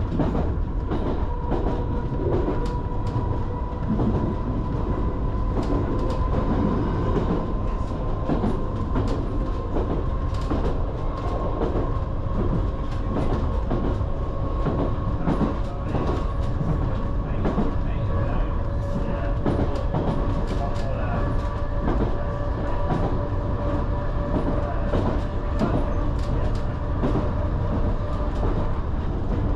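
Island Line Class 484 electric train running at speed, with a steady two-note whine under irregular clicks and rattles of the wheels on the track.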